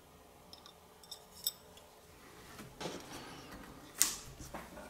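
Light metallic clicks and taps of steel tweezers handling small watch wheels against a chronograph movement's metal plate, with a soft rustle and then one louder sharp click about four seconds in.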